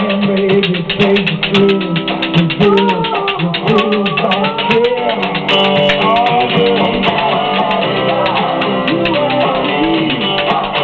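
Spoons played as a rhythm instrument, clicking in a fast, steady rhythm over guitar-led music.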